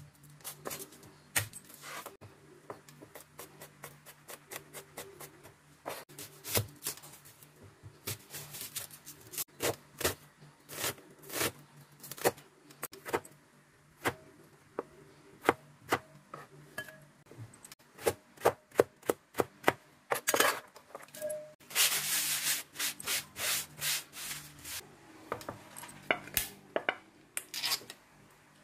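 Chef's knife chopping and slicing garlic, carrots and potatoes on a plastic cutting board: a long run of uneven sharp knocks on the board, with a denser stretch of scraping about two-thirds of the way through.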